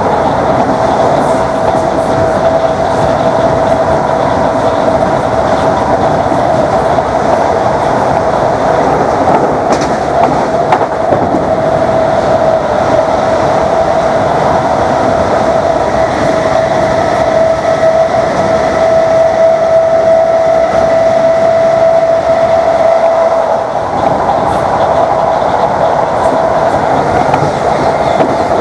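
Class 321 electric multiple unit running at speed, heard from on board: a steady traction-motor whine over loud running noise and wheel clatter on the rails. The whine grows stronger through the middle, with fainter higher tones joining it, then the sound dips briefly about 24 seconds in.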